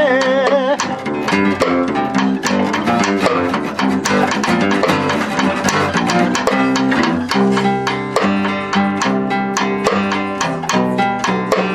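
Live acoustic band playing an instrumental break: guitars picking a quick, busy run of notes over steady low bass notes. A sung "yeah" is held with vibrato for the first moment.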